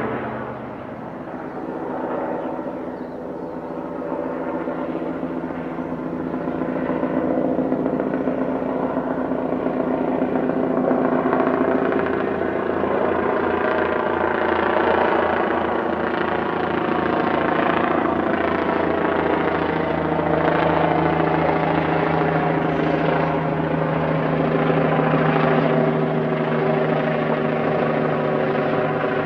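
Helicopter flying overhead: a steady drone of turbine and rotor with a rhythmic blade chop. It dips about a second in, then grows louder and holds steady.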